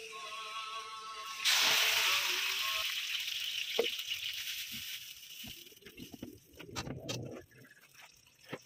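About a second and a half in, a loud sizzle as liquid hits a hot wok. It fades over several seconds into quieter bubbling, then a spatula clicks and scrapes in the pan near the end. Soft background music plays at the very start.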